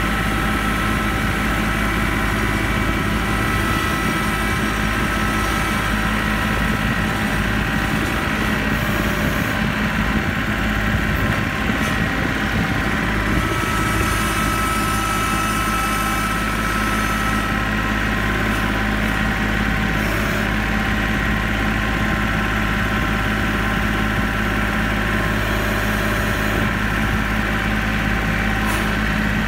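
Kubota L3901 compact tractor's three-cylinder diesel engine running steadily, heard from the operator's seat.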